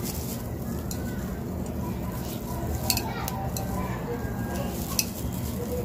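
Steady background hum, with a few light clicks of glass bottles knocking together as they are handled: two close together about three seconds in, and one more near five seconds.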